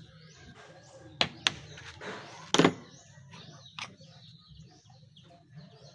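A few sharp knocks and clicks from a starter motor being handled and taken apart on the bench: two about a second in, the loudest about two and a half seconds in, and a smaller one later. Birds chirp in the background throughout.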